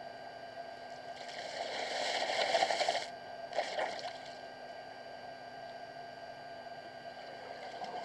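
Elephant sloshing water at a waterhole: a rush of water builds for about two seconds and cuts off suddenly, followed by a shorter splash.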